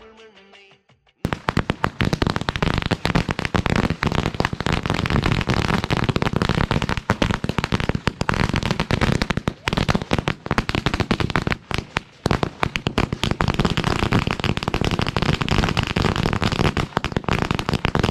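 A long string of firecrackers laid on a road going off in a rapid, unbroken run of bangs, starting about a second in.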